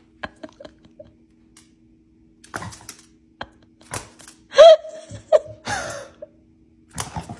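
A pomsky gives a few short whining yelps about halfway through, the first and loudest with a sharp rise in pitch, then a falling whine. Scattered light clicks and taps are heard around them.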